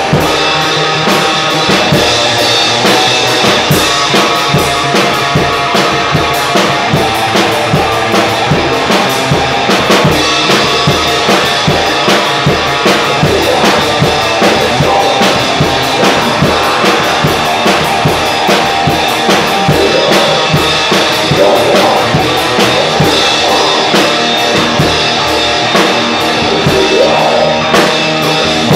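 Black metal band playing live: distorted electric guitars over a drum kit hit fast and loud, with dense, rapid drumming throughout.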